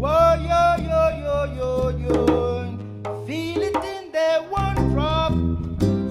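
Live band music: a voice sings long, held notes over bass and drums. The bass drops out briefly past the middle, then the full band comes back in.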